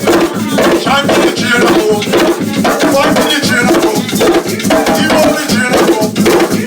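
Live group drumming: a dense, steady rhythm of drum strokes with a shaking rattle, and voices heard over it.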